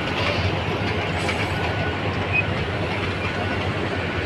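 Heavy diesel mining machinery, haul dump trucks and a loader working in an open-cast coal pit, running in a steady low rumble.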